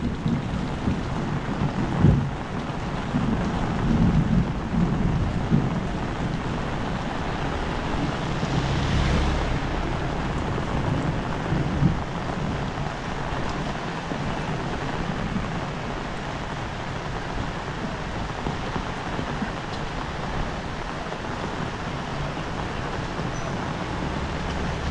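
Heavy rain falling steadily, with low rumbling thumps now and then in the first half.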